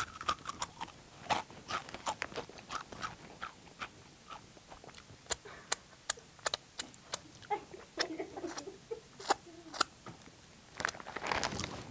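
Loud, open-mouthed crunching and chewing of Takis rolled tortilla chips: a steady run of sharp, irregular crunches, with a denser, louder burst near the end.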